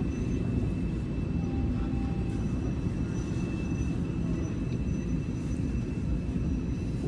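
TTC Line 1 subway train running, heard from inside the car: a steady low rumble with a faint, constant high-pitched whine over it.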